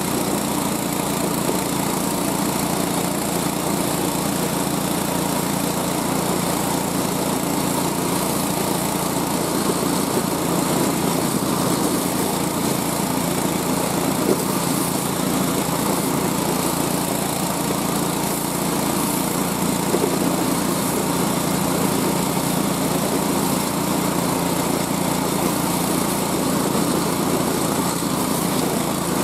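Small gasoline engine of a homemade motorized dog sled running steadily while under way, with no change in speed.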